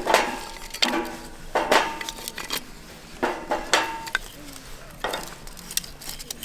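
Dishes, pots or cutlery clinking and knocking together, about seven separate strikes, several of them leaving a short metallic ring.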